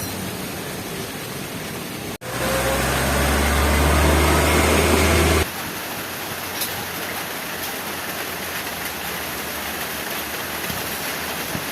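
Steady hiss of heavy rainfall. About two seconds in, after a brief dropout, a louder low steady hum rises over the rain for about three seconds and then cuts off abruptly.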